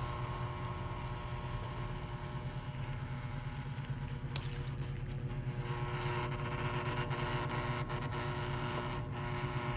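Live circuit board of a mains-powered cable TV converter sitting in salt water, sizzling with a steady electrical hum as current passes through the water. A single click about four and a half seconds in.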